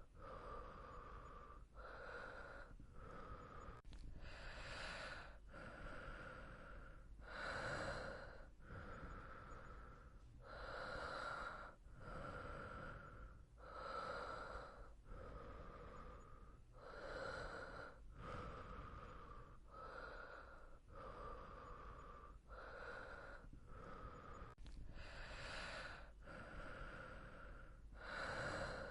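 Soft breathing of a sleeping person: slow, even inhales and exhales follow one another steadily, with a few somewhat louder breaths.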